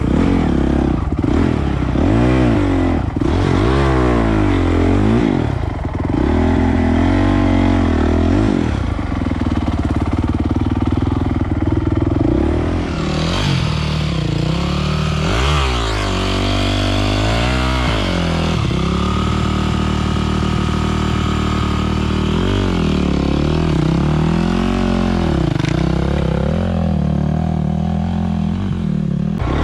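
Enduro dirt bike engines revving hard in repeated bursts, the pitch climbing and dropping with each twist of the throttle while the bikes work through deep mud; for a stretch past the middle the revs hold steadier.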